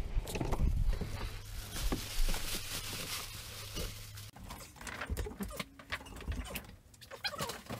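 Rustling and low rumble of a handheld camera being moved about, cutting off suddenly about four seconds in; then scattered light knocks and rattles as a BMX bike is lifted down from a wall hook.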